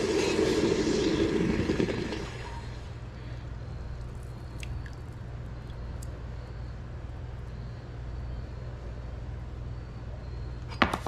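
Freshly cast copper ingot quenched in a bucket of water, hissing and bubbling loudly for about two seconds before dying away. Near the end, a sharp clack as the hot ingot is set down on a concrete block.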